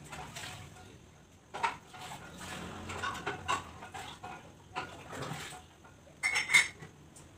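A thin steel wire and a plastic-covered hookup wire being handled and twisted together by hand: scattered light metallic clinks and rustles, with a louder ringing clatter a little after six seconds in.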